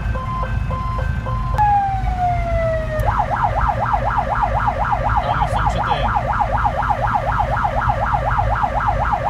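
Emergency-vehicle electronic siren heard from inside the cab over the steady low rumble of the engine. It starts as short repeated tone pulses, glides down about a second and a half in, and then switches to a fast yelp that sweeps up and down about three to four times a second.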